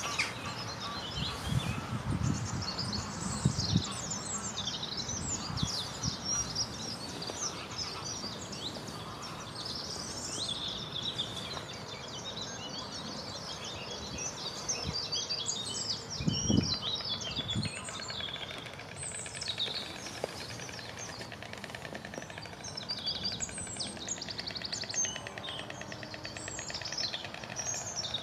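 A chorus of small songbirds singing and chirping at once, many overlapping short phrases and trills. A few low thumps break in near the start, and one louder one comes about sixteen seconds in.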